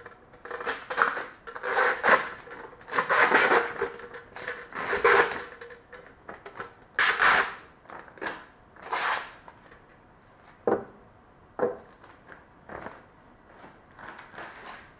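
Clear plastic water tank of a DeLonghi PrimaDonna XS coffee machine being slid out and handled: repeated plastic scraping and rubbing for about the first nine seconds, then a few sharp clicks and knocks as it is set down and fitted.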